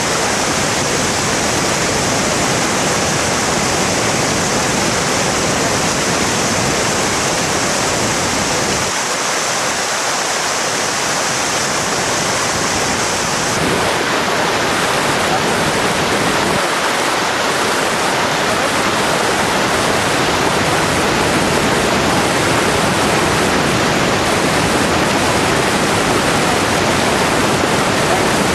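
Large waterfall in flood, a torrent of muddy water pouring and crashing over rocks: a loud, steady roar of rushing water, whose hiss changes a little about halfway through.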